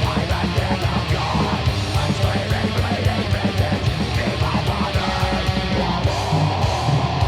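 Background rock music with distorted guitar and a driving beat.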